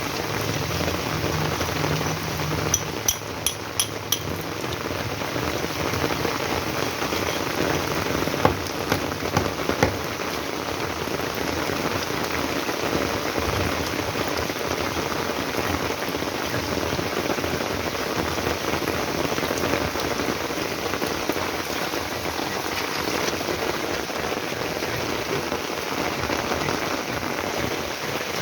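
Heavy rain falling steadily. A few sharp clicks come through it about three seconds in, and a few more near the middle.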